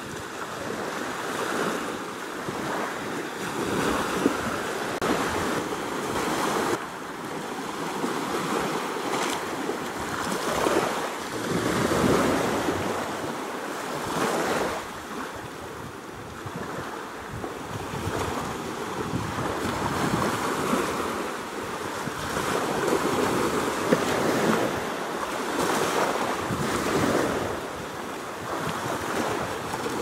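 Small sea waves breaking and washing up a sandy beach: a hissing surf that swells and fades every two to three seconds.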